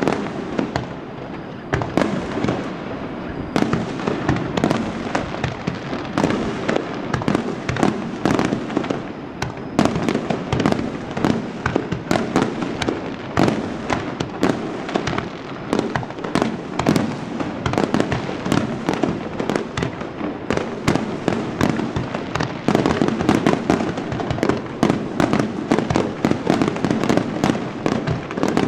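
Aerial firework shells bursting one after another, a continuous run of overlapping bangs and crackle that packs closer together in the second half.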